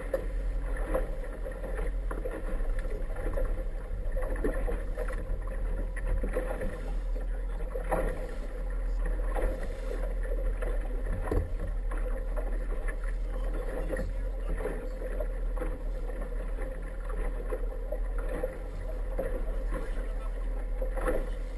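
Small inflatable boat under way at slow speed: a steady low hum with water splashing and knocking against the hull.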